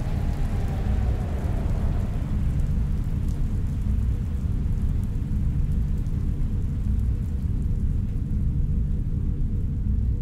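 Steady deep rumbling drone of a synthesized sci-fi room ambience, with a faint hum and a light hiss like distant rain over it. A falling electronic whine dies away about a second in.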